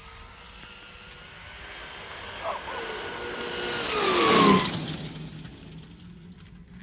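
A vehicle passing by: it grows louder to a peak about four and a half seconds in, its pitch dropping as it passes, then fades away.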